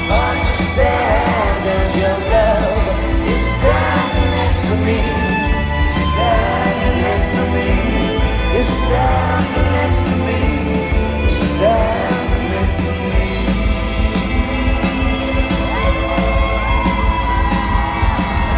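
Live rock band playing loud through a concert PA, heard from within the crowd: acoustic guitar, bass and drums with singing over them.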